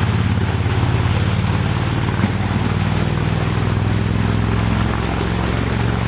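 Steady low engine drone of a motorboat on the river, with water splashing against the shoreline rocks underneath; the drone stops abruptly near the end.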